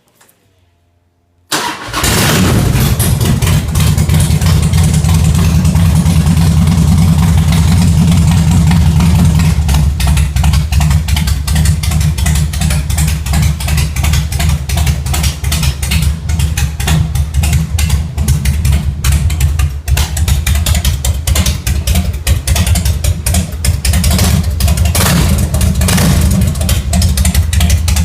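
Harley-Davidson Twin Cam V-twin engine started with its exhaust silencers removed. It catches about a second and a half in and settles into a loud, loping idle with an uneven beat.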